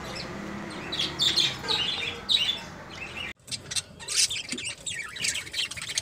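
A flock of budgerigars chirping and chattering in rapid, overlapping high chirps. The sound cuts out for a moment about three seconds in, then the chatter starts again.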